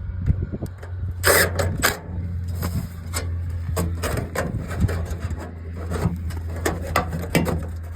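Aluminum downspout hinge and elbow pieces being handled and fitted, giving sharp clicks and short metallic rattles, over a steady low engine-like hum.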